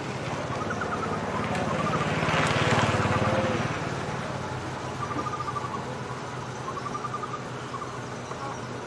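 Short, wavering animal calls repeat every second or two over a steady chorus of crickets. A rush of noise with a low hum swells and fades about two to three seconds in.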